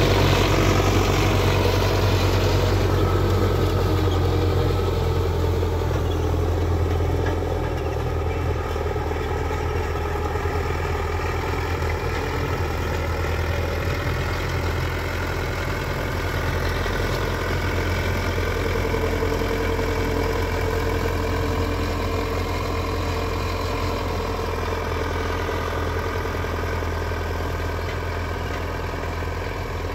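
MTZ-50 tractor's four-cylinder diesel engine running steadily under load as it pulls an 18-disc harrow through dry soil. It grows gradually fainter as the tractor moves away.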